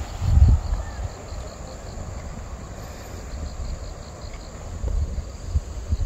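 Wind buffeting the microphone in low gusts, strongest about half a second in, over an insect chirping steadily at about five pulses a second.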